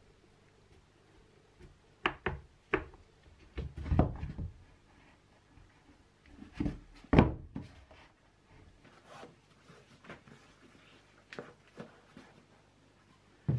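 Handling sounds of a pair of leather hiking boots being laced and moved on a table: a few sharp clicks about two seconds in, then several dull thumps, the loudest around four and seven seconds, with scattered small knocks.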